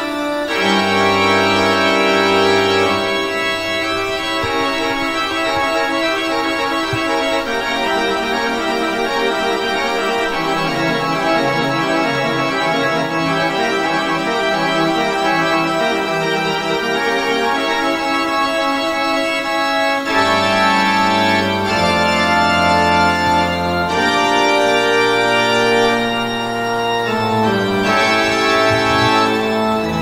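Organ music: full, sustained chords held for seconds at a time, moving more quickly in the last third.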